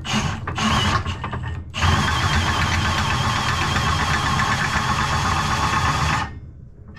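The height-adjustment screw of a homemade welding-table leg being driven from the table top, raising or lowering the leg: a few short bursts, then a steady run of about four seconds that stops near the end.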